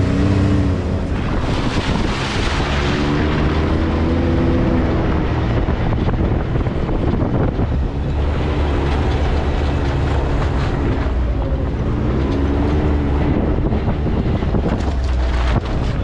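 Side-by-side UTV engine running under way, revving up and easing off several times, over a steady rushing wind noise on the microphone.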